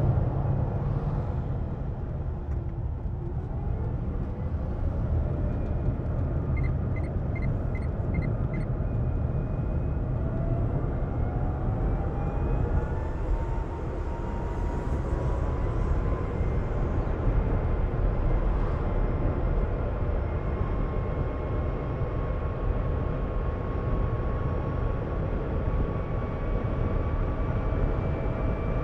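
Renault Twizy's electric drive motor whining, rising in pitch as the car speeds up and then holding steady at cruising speed, over a steady road and tyre rumble; a whine the owner likens to a jet engine spooling up. About seven seconds in, a quick run of five short beeps.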